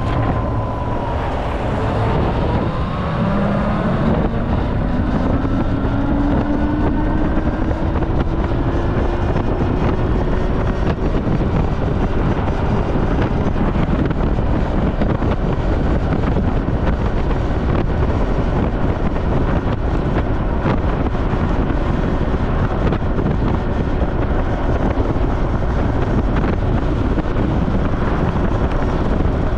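Heavy wind rushing over the microphone while riding a Super Soco TC Max electric motorcycle, with the electric motor's thin whine rising in pitch from about two seconds in, then holding steady.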